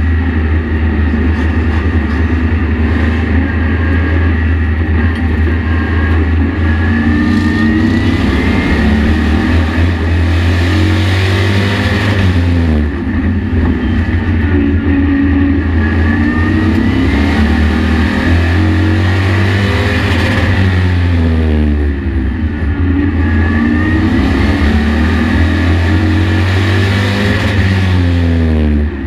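Race truck engine heard from inside the cab while lapping a short oval, under a steady heavy drone. The engine climbs in pitch along each straightaway and falls off into each turn, repeating about every eight seconds.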